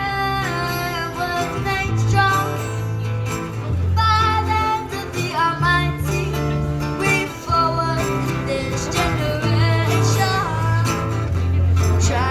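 A singer performing a song with guitar accompaniment, the voice wavering in vibrato over strummed chords and deep bass notes.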